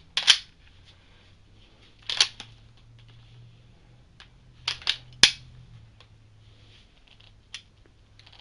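Henry H001T lever-action .22 rifle being cycled by hand: a handful of sharp metallic clacks as the lever and bolt open and close, spaced a second or two apart, the loudest about five seconds in.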